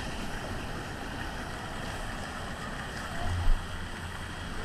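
Steady rush of water and wind noise on the microphone with a low rumble, as during a ride down a water slide, with a single thump about three and a half seconds in.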